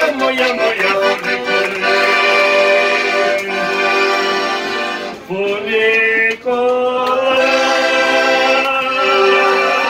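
Todeschini piano accordion playing a tune, quick short chords at first and then longer held chords. The sound drops briefly twice a little past halfway.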